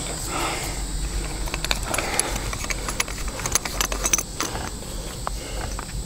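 Small clicks, taps and rustles of hands working a blue PEX water line onto a metal pipe fitting, scattered irregularly over a steady low outdoor background rumble.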